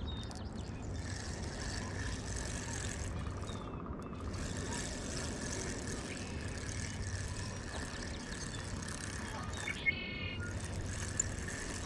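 Spinning reel being cranked to bring in a hooked trout, over a steady background rumble and hiss.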